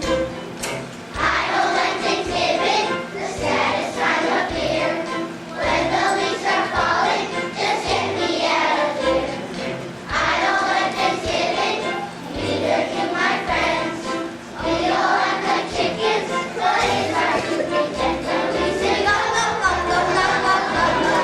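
Children's choir singing in unison over an instrumental accompaniment with a steady beat.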